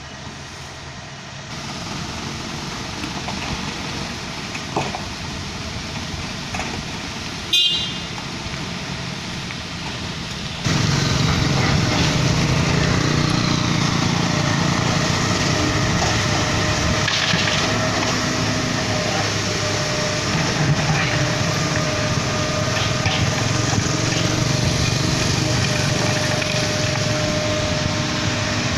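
Kobelco SK75 hydraulic excavator's diesel engine and hydraulics working as it digs a trench and lifts a loaded bucket. There is a single short sharp knock about a quarter of the way in. About a third of the way in the machine noise jumps abruptly much louder, with a steady whine, and stays there.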